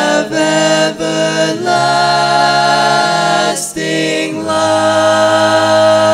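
Male a cappella gospel quartet of teenage boys singing the closing chords of the song in four-part harmony. The held chords change a few times in the first few seconds; about four seconds in a last long chord begins, with a low bass note beneath it.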